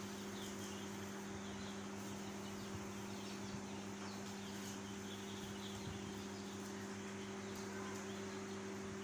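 A flock of young chicks peeping faintly and continuously, over a steady low hum.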